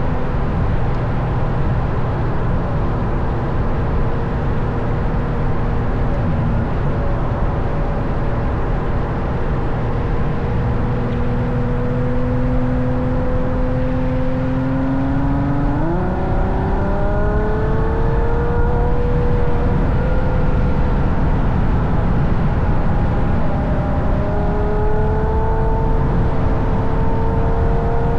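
Ferrari GTC4Lusso with a Capristo exhaust driving at speed. The steady exhaust note jumps up in pitch about halfway through as the revs climb, then changes again near the end. Tyre and wind noise run underneath.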